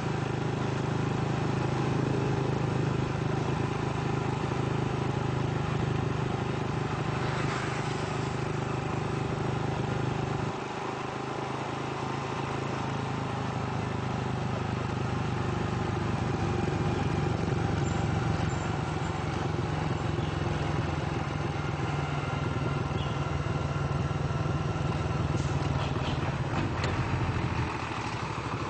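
Engine of the vehicle carrying the camera, running steadily under road and traffic noise. Its note drops about ten seconds in, builds up again a few seconds later and falls away near the end, with a brief rush of a passing vehicle about eight seconds in.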